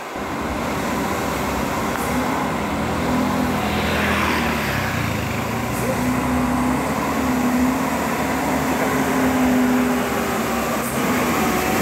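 Heavily loaded truck's diesel engine running steadily under load as it climbs a steep grade, with a brief hiss about four seconds in.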